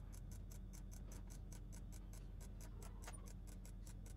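Computer mouse button clicked rapidly and evenly, a run of faint clicks about six a second, shift-clicking faces one after another to select them.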